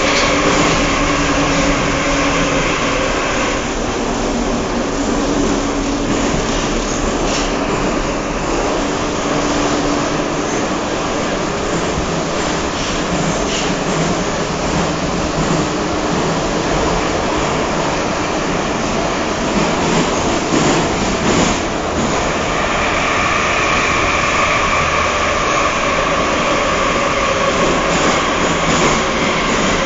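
Moscow Metro train running, heard from inside the passenger car: a loud, steady rumble of wheels and running gear. A steady hum runs through the first half, and a higher whine comes in about three-quarters of the way through.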